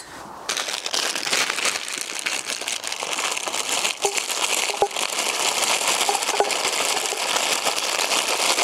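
Plastic bag of mixed vegetables crinkling as it is handled and emptied into a saucepan; the crinkling starts about half a second in and goes on steadily.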